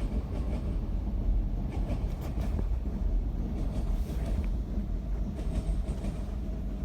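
Train running, a steady low rumble with scattered faint clicks.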